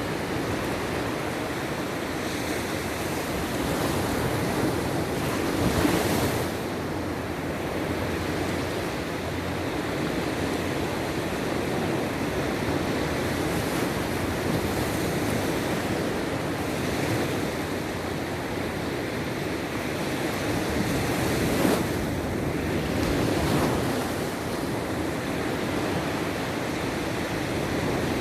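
Sea waves washing onto the shore in a continuous surf, with louder waves breaking about six seconds in and again about twenty-one seconds in. Wind rumbles on the microphone.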